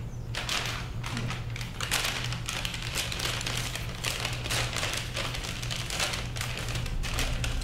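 A bag crinkling and rustling in quick irregular bursts as it is opened and food is taken out of it, over a steady low hum.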